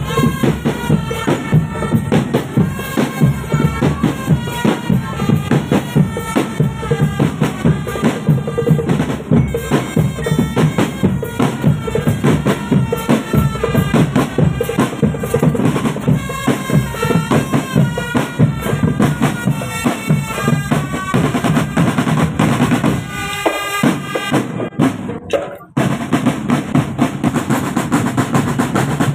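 Marching drum band playing: dense snare and bass drumming with rolls, and a melody line stepping over it. The playing breaks off briefly about three-quarters of the way through, then starts up again.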